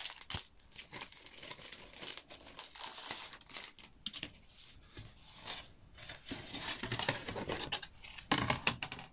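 Packages of table tennis rubber sheets being handled over the blade: irregular rustling and scraping with small clicks, loudest near the end.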